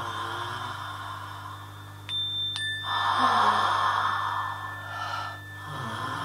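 Experimental electronic soundscape: steady high pure tones over a low hum, with a swell of hiss about three seconds in that fades out by about five seconds.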